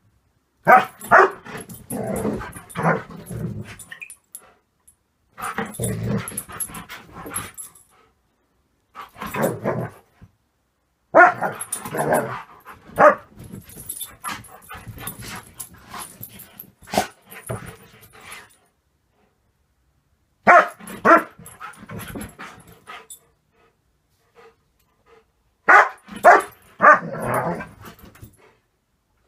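Dog barking and growling in excited play, in bursts of a second or a few seconds with silent pauses between.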